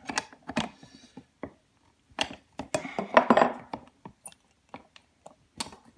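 Irregular clicks and metallic clinks, with a busier rattling stretch around the middle, from a Model T ignition coil being adjusted and handled in the wooden box of a coil tester.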